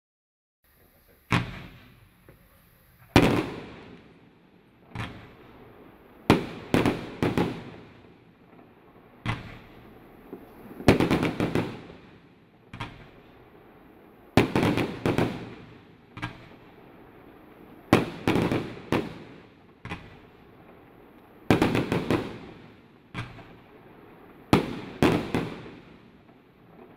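An F3-category consumer firework cake firing shot after shot, starting about a second in. It gives sharp bangs every second or two, some in quick pairs or triples, and each one trails off.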